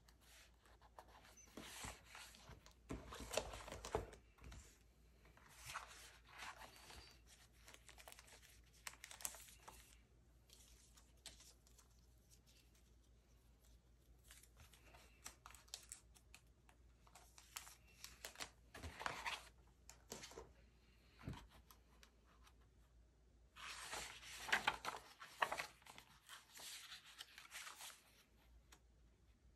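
Soft, irregular rustling and crinkling of a clear plastic diary cover and a plastic sticker storage file being handled, with paper diary pages turned and smoothed flat. The loudest handling comes a few seconds before the end.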